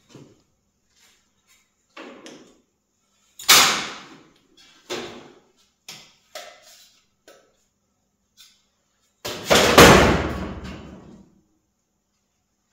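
Sheet-metal pieces knocking and clattering as they are handled and set down, with a loud bang about three and a half seconds in and a longer, louder metallic crash near the end.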